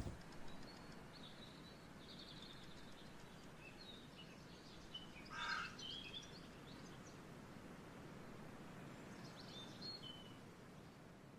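Faint outdoor ambience with songbirds chirping: scattered short, high calls over quiet background noise, and one louder call about five and a half seconds in.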